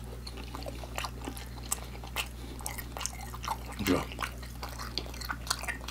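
A person chewing a fried chicken nugget, with scattered small mouth clicks throughout.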